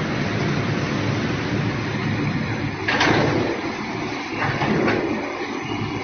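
Steady running noise of an EVA compound granulating line's machinery, a two-roll mixing mill and its feeding gear. A sudden loud burst of noise comes about three seconds in, with two shorter ones near five seconds.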